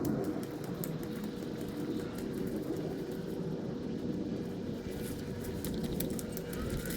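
Steady low rumble of an engine running, with a faint steady hum and a few light clicks in the second half.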